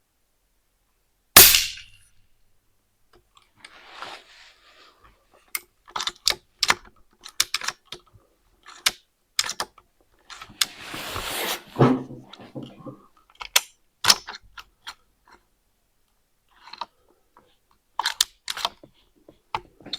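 A single sharp shot from an Altaros M24 air rifle about a second in, the loudest sound. After it come many small metallic clicks and rustles of the rifle being handled and reloaded.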